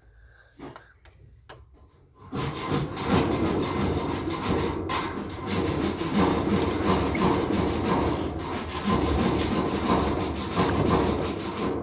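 Hand saw cutting in quick back-and-forth strokes, starting about two seconds in.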